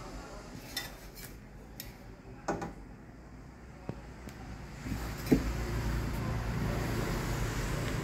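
Light clicks and clatter of microwave oven parts being handled, with a louder knock about five seconds in, followed by a steady low rumble.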